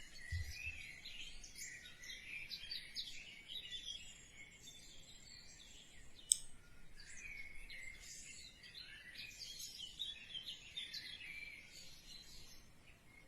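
Faint bird chirping and twittering in the background, many short calls throughout, with a single sharp click about six seconds in.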